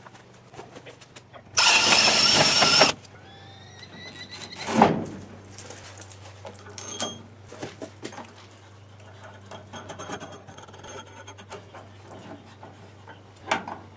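A cordless drill runs for about a second and a half, driving a screw into the wooden door-frame board of a metal shed. A short rising squeal follows, then a knock and lighter handling and tapping sounds.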